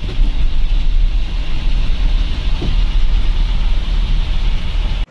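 A bus engine running, heard from inside the front of the bus as it moves slowly through a bus stand: a steady deep rumble with a constant haze of cabin and road noise.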